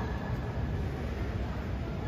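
Steady low rumble of tournament-hall background noise, with indistinct crowd voices.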